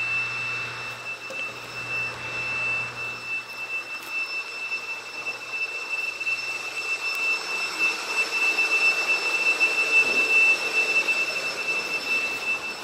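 Vacuum cleaner motor running steadily: a high whine over a rushing hiss, growing somewhat louder in the second half.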